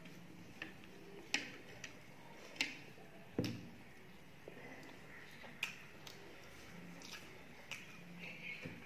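Close-up eating sounds: about ten scattered sharp clicks and wet smacks, the loudest about three and a half seconds in, as a person chews and mixes rice with fish by hand on a plate.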